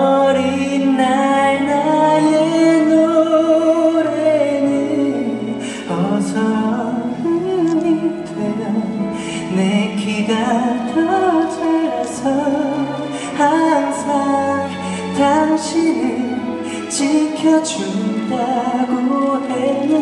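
A male vocalist singing a Korean song live into a microphone, holding long notes, over orchestral accompaniment.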